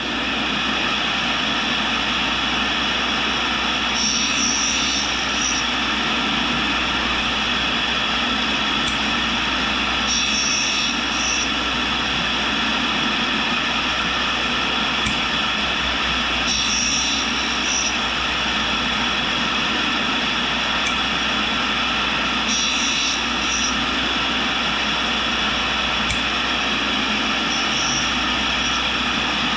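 Tool and cutter grinder running steadily, its wheel dry-grinding the cutting end of a high-speed steel roughing end mill. A brighter, higher hiss comes back about every six seconds, lasting a second or so each time, as the wheel passes across the cutter.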